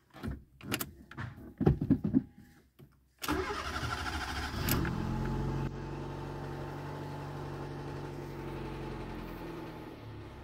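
Fiat Seicento 900's 899 cc four-cylinder engine being started. A few clicks and knocks come first, then the starter cranks for about a second and a half. The engine catches with a brief rev about five seconds in and settles into a steady idle.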